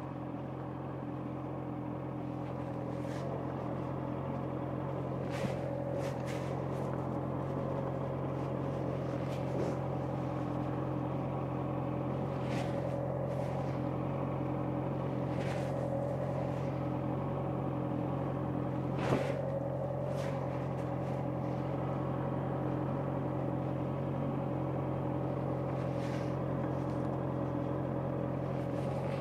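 Honda CBR650R inline-four motorcycle engine running at steady revs, with a single sharp click about two-thirds of the way through.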